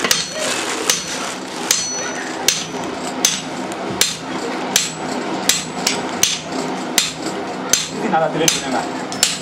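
Blacksmith's hammers striking red-hot iron on an anvil in a steady, even rhythm, about one blow every three-quarters of a second. Several blows leave a short, high metallic ring.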